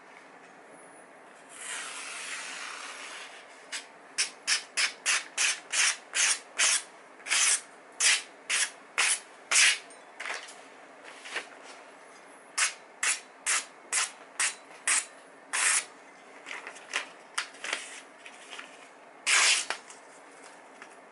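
A freshly sharpened cleaver slicing repeatedly through a held sheet of magazine paper as a sharpness test. Each cut is a short, crisp rasp, coming about two to three a second in runs, with a longer, softer rasp near the start and a longer, louder cut near the end.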